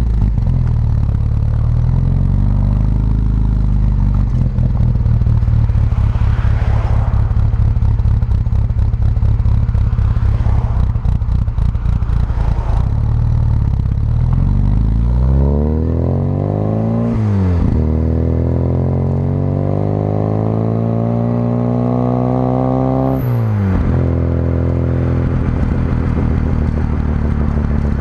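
Exhaust note of a classic Mini's 1100 A-series four-cylinder engine, bored +.020 in and breathing through an SU HS4 carburettor and a single-box Sportex exhaust, recorded at the tailpipe while driving. The engine runs steadily at low revs for about the first half. It then revs up, with two gear changes (sharp drops in pitch) at about 17 and 23 seconds in, each followed by the note climbing again.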